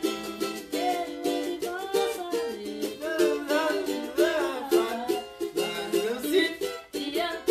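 A small plucked string instrument strummed steadily in a pagode rhythm. Over it a voice carries the melody in gliding phrases without clear words.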